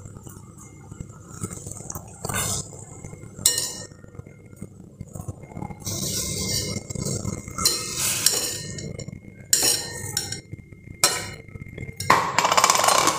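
Steel ladle clinking and scraping against a stainless steel kadhai in a series of separate knocks, with a denser stretch of scraping near the end, as ground rice paste is poured into hot water in the pan and worked in.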